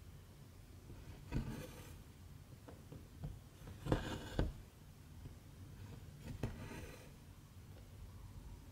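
Embroidery thread being pulled through stamped 11-count cross-stitch fabric: three soft swishes, one per stitch, about two and a half seconds apart, the loudest about four seconds in, over a faint low hum.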